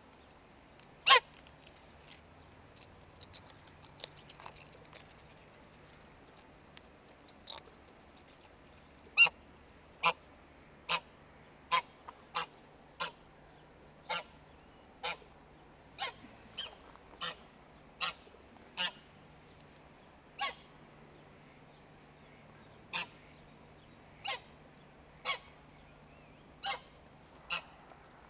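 Domestic grey goose honking in short, sharp calls: one loud honk about a second in, then after a lull a long run of honks roughly once a second.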